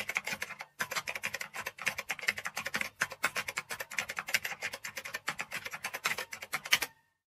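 A typing sound effect: rapid key clicks, about ten keystrokes a second. There is a short pause about a second in, and the clicks stop shortly before the end.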